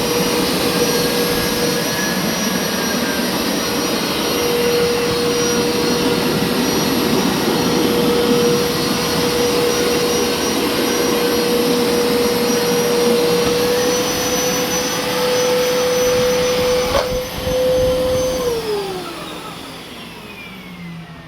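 Hoover carpet cleaner's motor running with a steady whine, then a click about seventeen seconds in as it is switched off, and the motor winding down with its pitch falling.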